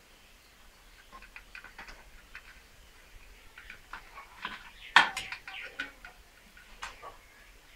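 Scattered small clicks and taps of wires and plastic miniature circuit breakers being handled in an MCB box, with one sharper, louder click about five seconds in.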